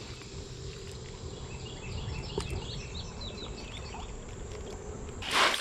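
A songbird singing a quick run of short falling chirps about two seconds in, over a steady low outdoor rush. A loud noisy burst comes near the end.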